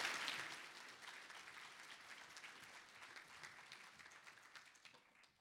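Audience applauding, loud at first and dying away over about five seconds until it stops.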